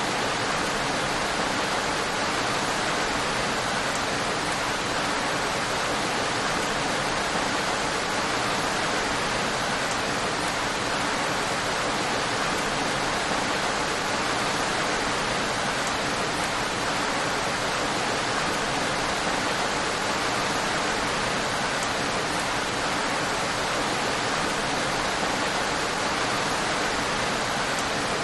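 Rain falling in a steady, even hiss, with no single drops, thunder or other events standing out.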